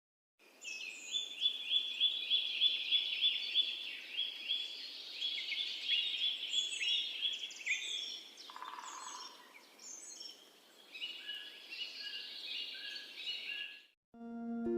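A songbird singing: a fast run of repeated sharp chirping notes, several a second, then more varied phrases. There is a brief noise partway through. The song cuts off near the end and soft music begins.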